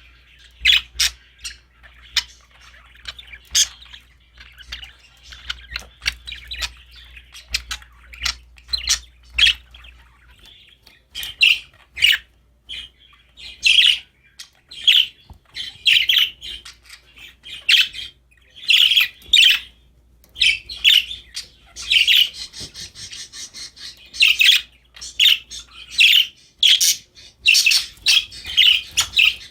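Budgerigars chirping and warbling in quick short calls, sparse at first and then near-continuous from about ten seconds in, growing busier with harsher squawks in the last third.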